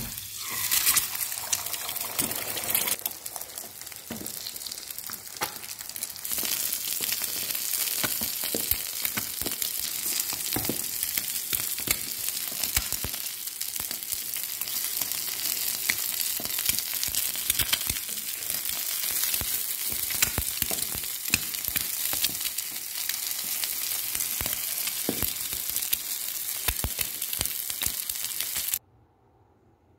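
Eggs frying in hot oil in a small nonstick pan: a steady crackling sizzle with many small pops. It flares up loudest at the start as the beaten eggs are poured in, and cuts off abruptly near the end.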